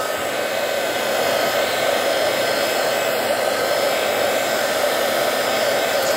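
Handheld craft embossing heat gun running steadily, blowing hot air over wet alcohol ink: an even rush of air with a thin steady whine above it.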